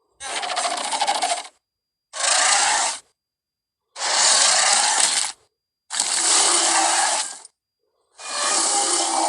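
Carnotaurus sound effects from Jurassic World Camp Cretaceous: a run of five separate raspy growls and roars, each one to one and a half seconds long with dead silence between them; the last one starts near the end and fades slowly.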